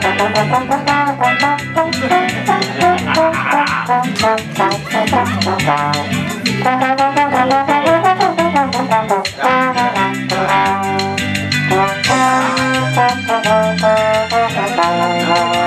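Trombone playing a solo melody live over a backing track from a small amplifier, with a steady drum beat and a moving bass line.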